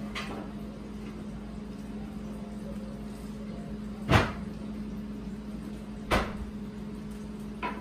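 Two sharp knocks about two seconds apart, the first louder, over a steady low hum.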